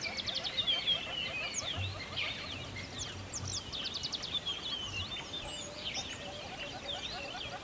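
A chorus of many birds singing and chirping at once: overlapping high calls, quick trills and sweeping notes, with a lower note repeated steadily beneath them.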